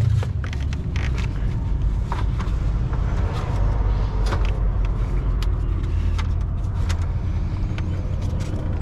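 Plastic clicks and knocks of a cooling fan assembly being worked down into its stiff side clips, scattered and irregular, over a steady low rumble.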